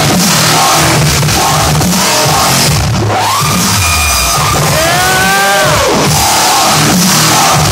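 Loud electronic dance music from a DJ set over a club sound system, with a pounding beat. A synth sound sweeps up and back down about three seconds in, and another pitched sound bends up and down around five seconds in.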